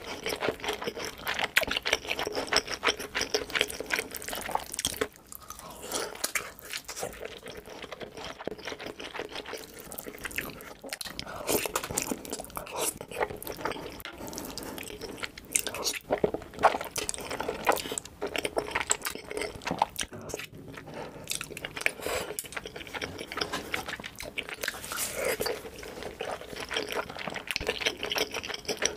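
Close-miked eating sounds from one person: chewing fried luncheon meat dipped in cheese sauce, and sucking up and chewing creamy alfredo spaghetti.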